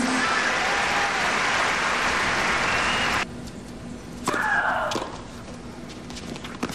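Crowd applauding, cut off suddenly about three seconds in. Then a tennis serve: the server's falling shriek as she strikes the ball, with the sharp pops of racket on ball and a few further hits as the rally starts.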